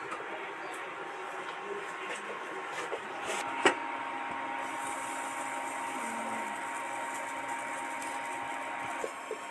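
Steady hiss of a gas burner heating a clay pitha pan, with one sharp click about three and a half seconds in, after which a faint steady whine joins the hiss.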